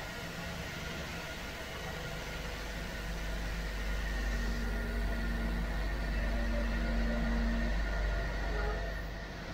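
Steady machinery hum and low rumble of a workshop, with thin steady whines above it; the rumble swells a little through the middle, and a low held tone joins in partway through.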